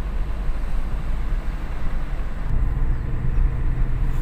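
Steady low rumble of a moving vehicle's engine and road noise, recorded while riding. The sound changes abruptly about two and a half seconds in, where the recording cuts.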